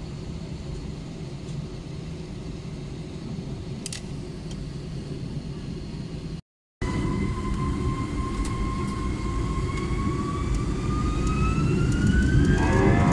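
Airbus A321 jet engines heard from inside the cabin. There is a steady low rumble at first, then, after a brief gap, a whine that rises steadily in pitch and grows louder as the engines spool up for the takeoff roll.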